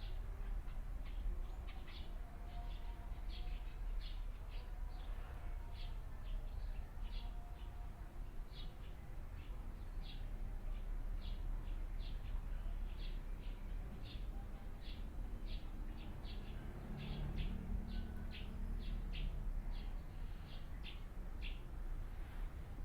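A bird chirping over and over in short, high chirps, about two a second, over a low steady rumble.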